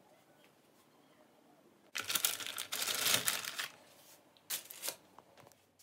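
Plastic food packaging crinkling and rustling as it is handled, in a longer bout about two seconds in and a shorter one near the end.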